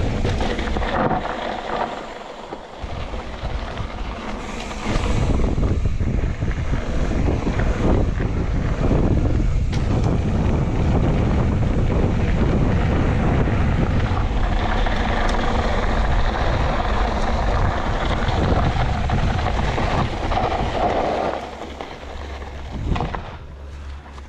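Wind buffeting the microphone and tyres rumbling over a dirt trail on a mountain bike descent, with scattered knocks from bumps. It eases off briefly about two seconds in and again near the end.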